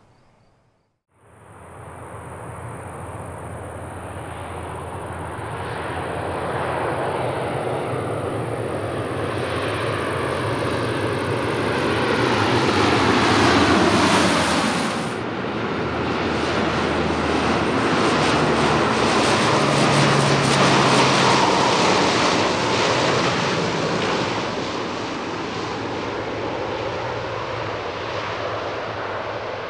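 Lockheed MC-130H Combat Talon II's four Allison T56 turboprop engines and propellers on approach, starting about a second in, swelling to their loudest and dropping in pitch as the aircraft passes low overhead about halfway through, then running on steadily as it comes down onto the runway.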